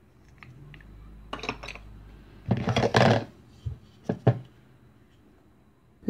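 Plastic toy food pieces clattering and knocking against a plastic bowl: a few light clicks, a louder burst of clatter about halfway, then three or four single taps.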